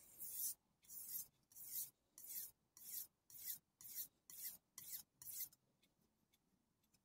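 Kai Shun chef knife being sharpened on the wet 1000-grit side of a Kai combination whetstone: a quick run of about ten hissing scrapes, nearly two a second, stopping a little over five seconds in.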